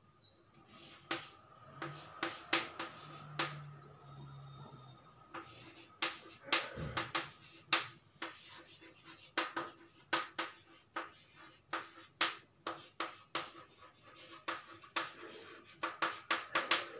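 Chalk writing on a blackboard: an irregular run of sharp taps and short scratching strokes as words and numbers are chalked out.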